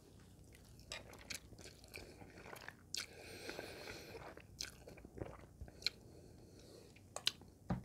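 A person chewing a mouthful of thick, chewy instant noodles, heard as faint, scattered wet mouth clicks and smacks.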